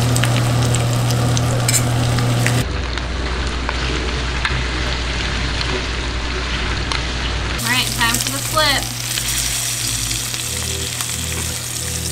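Flour-dredged hardhead catfish fillets frying in hot butter in a stainless steel skillet, a steady sizzle, with a low hum beneath. A few short squeaks sound around eight seconds in.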